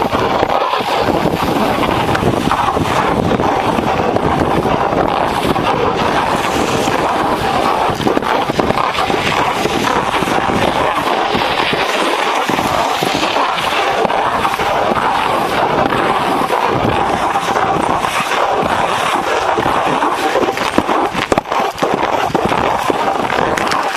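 A snowboard sliding down a packed snow trail, its base and edges scraping over the snow with a steady crackling hiss. The sound dips briefly a few seconds before the end.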